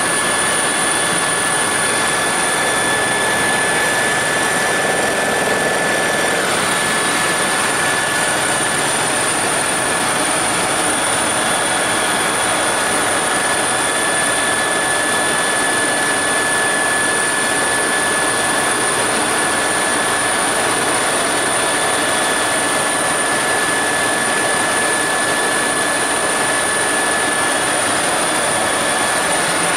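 Helicopter in fast forward flight heard from inside the cabin: a loud, steady rush of rotor and engine noise with constant high-pitched whines laid over it.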